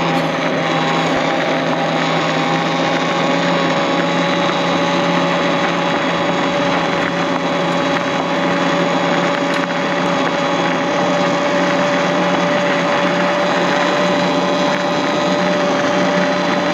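Talaria Sting R MX4 electric dirt bike's motor whining steadily at cruising speed, over a constant rush of wind and tyre noise.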